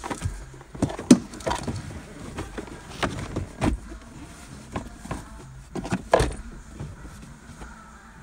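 Hard plastic glove box of a Vauxhall Corsa D being handled and fitted back into the dashboard: a string of knocks and clunks, with the loudest about a second in and again about six seconds in.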